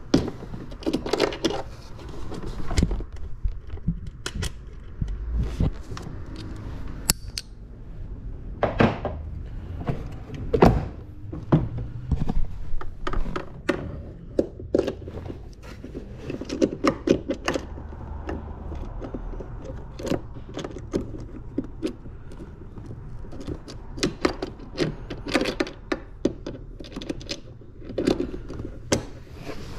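Hand ratchet and socket doing up bolts in a jet ski's plastic body panels: irregular ratchet clicks, metal clinks and knocks of tools and parts.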